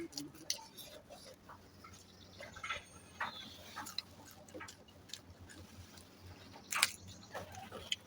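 Eating sounds: chewing with irregular, scattered mouth clicks and smacks, one sharper click about seven seconds in.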